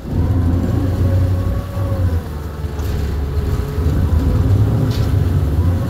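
Motorboat engine running under way, a steady low rumble with a faint whine that dips slightly in pitch, coming in suddenly louder right at the start.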